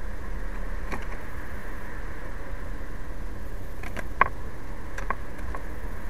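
A handful of small, sharp taps and clicks of a small bird pecking and hopping at a plastic seed tray, the loudest about four seconds in, over a steady low rumble and hiss.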